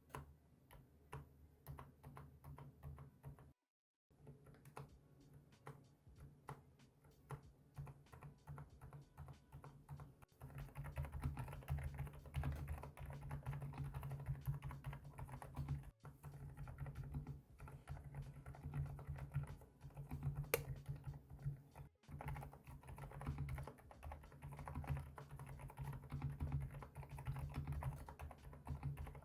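Mechanical keyboard with Kailh Deep Sea switches being typed on, in several edited takes. For about the first ten seconds the keystrokes are separate and unhurried. After that comes fast, continuous typing with a dense clatter of key presses.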